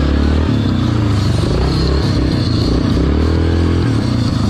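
Yamaha Grizzly ATV engine revving up and down while being ridden on a trail, over music playing from a soundbar mounted on the front rack.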